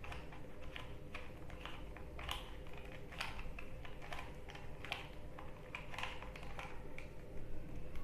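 Plastic clicking of a 3x3 Rubik's cube's layers being turned by hand: an irregular run of sharp clicks, about two a second.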